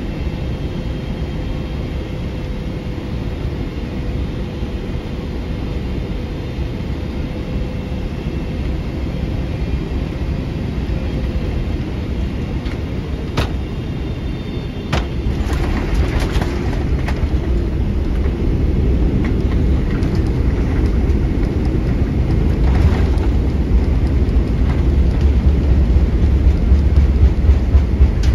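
Boeing 777-300ER cabin noise during landing: a steady rumble, then two sharp thumps about a second and a half apart as the wheels touch down, followed by a low rumble that grows louder as the airliner rolls out on the runway.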